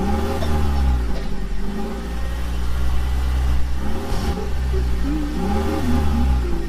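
An engine running and revving over a steady low rumble, its pitch rising and falling in slow arcs every second or so.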